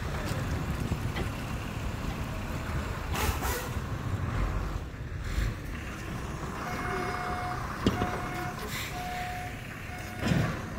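Outdoor yard noise with a low vehicle engine rumble and a couple of knocks; from about seven seconds in, a vehicle's reversing alarm beeps four times with uneven gaps.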